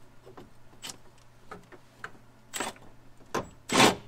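Small metallic clicks and clinks of tools at a car's rear wheel hub. Near the end comes a short, loud burst from a cordless impact wrench on a hub bolt; the wrench seems too small for the job, since a bigger impact was used last time.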